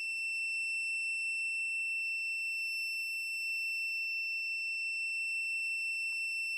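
A continuous high electronic beep: a single steady pitch with overtones, held without a break.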